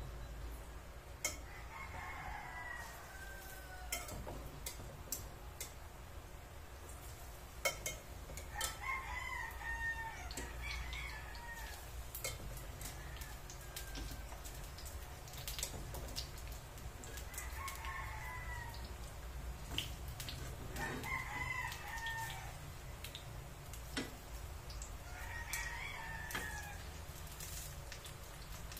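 A rooster crowing five times in the background, each crow a second or two long, with sharp clicks of metal tongs against a frying pan in between.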